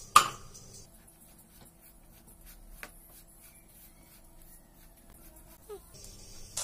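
Silicone spatula stirring and scraping dry roasted semolina in a nonstick pan, a faint rubbing sound with a few small ticks, after one sharp knock just after the start.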